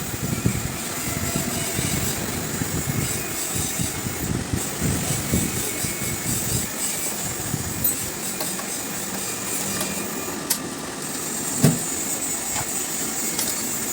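Motor traffic running steadily, with a few sharp metallic clicks, about ten and eleven and a half seconds in, from work on the motorcycle's brake.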